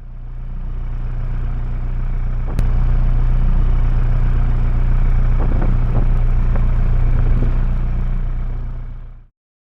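Albin 27 cruiser's inboard diesel engine running steadily, a low even drone. It fades in, a sharp click comes about two and a half seconds in, after which it is a little louder, and it fades out near the end.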